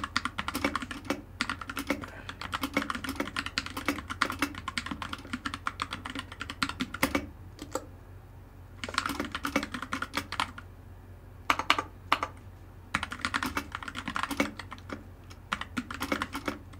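Typing on the mechanical keyboard of a Hemingway Freewrite Signature Edition smart typewriter: rapid runs of key clicks, broken by a few short pauses in the second half.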